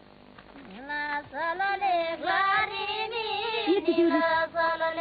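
A high voice singing a gliding melody, coming in about a second in over steady held background tones.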